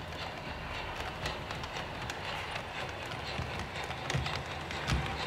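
Sound-equipped model train running on the layout: a rhythmic clicking clatter over a low, steady engine hum from the locomotive sound modules.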